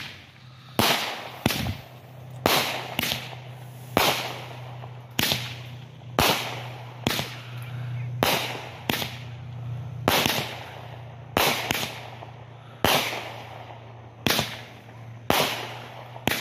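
Consumer aerial fireworks firing shot after shot: about twenty sharp bangs, one every half second to a second, each with a short fading echo.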